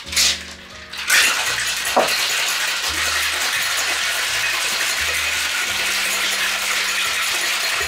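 Ice rattling in a copper-coloured metal cocktail shaker (tin-on-tin) shaken vigorously to mix and chill a cocktail, a dense steady rattle that starts about a second in.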